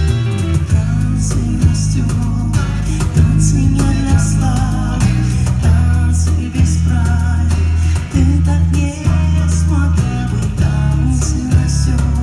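Live band playing a pop-rock song: guitar over a steady, sustained bass line, with some singing.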